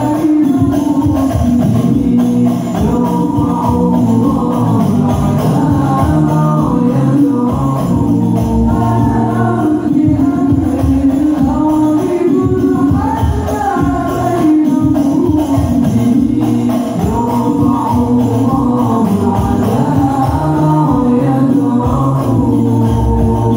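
Al-Banjari ensemble performing: young men's voices singing together into microphones over hand-struck frame drums (terbang), played loud through a PA system.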